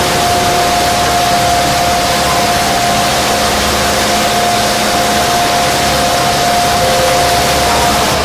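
Passenger boat's engine running steadily under way, under a loud, even rush of wind and churning water, with a thin steady whine held throughout.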